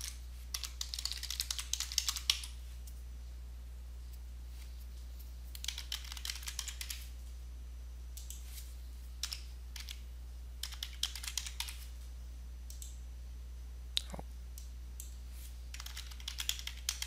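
Computer keyboard typing in short bursts of rapid key clicks separated by pauses of a second or more, with a single sharper click about fourteen seconds in, over a steady low hum.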